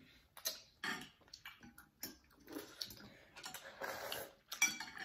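Irregular light clicks of chopsticks and spoons against ceramic bowls, with slurping and eating of noodle soup.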